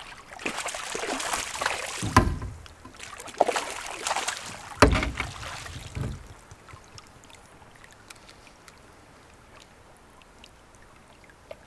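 Water splashing in bursts as a hooked smallmouth bass thrashes at the surface beside a canoe, with two sharp thumps about two and five seconds in. After that it goes quieter, with only faint ticks.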